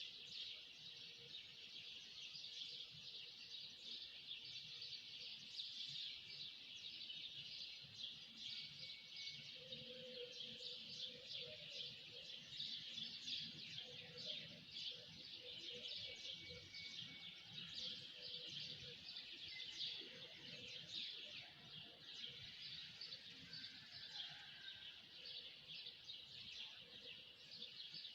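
A flock of many small birds chirping and twittering at once, a dense, unbroken chorus of short high notes.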